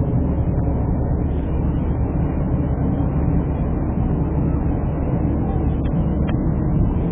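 Aircraft engines droning as a formation flies overhead: a steady, loud low rumble.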